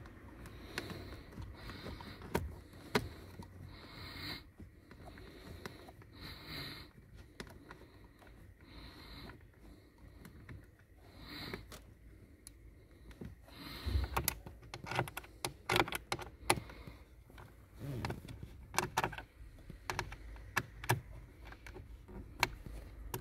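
Small screws being run in by hand into a plastic panel under a car dashboard: light, scattered clicks and scrapes of metal on plastic, more frequent in the second half.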